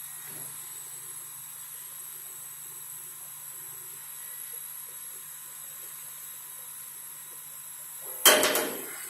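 Kamach II 1060 laser cutting machine running with a steady hum and hiss. Near the end comes one loud knock or clatter.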